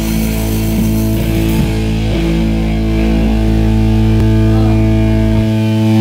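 Loud distorted electric guitar and bass through amplifiers, holding a sustained ringing chord with no drum beat. The lowest note cuts off near the end.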